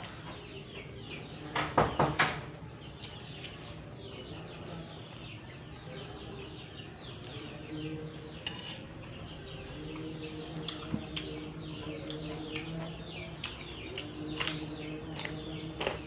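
Plate and utensils clatter loudly a few times about two seconds in, while birds chirp steadily in the background.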